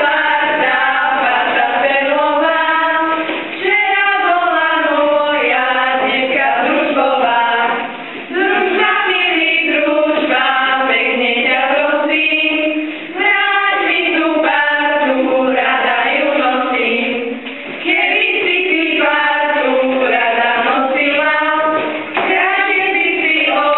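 Children's choir, mostly girls' voices, singing a folk song without instruments, in phrases of about four to five seconds, each broken by a short breath pause.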